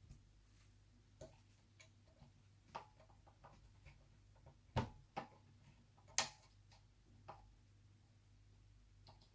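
Faint, scattered clicks and ticks of a small screwdriver driving a screw into a laptop motherboard, with three sharper clicks about halfway through.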